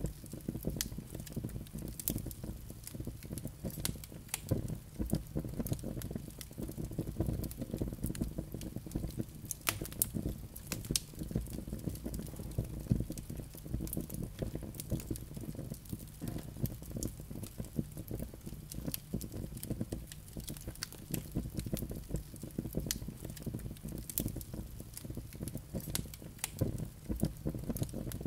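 Wood fire burning in a fireplace: a steady low rumble of flames with frequent, irregular sharp crackles and pops from the burning logs.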